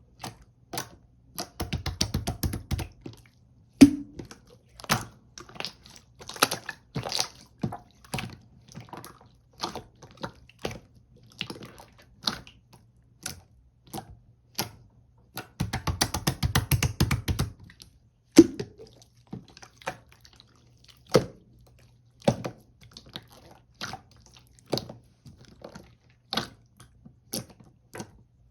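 Pearl marbling slime being pressed and kneaded by hand: a steady string of sticky clicks and air-bubble pops, with two stretches of rapid crackling popping, about two seconds in and again just past halfway.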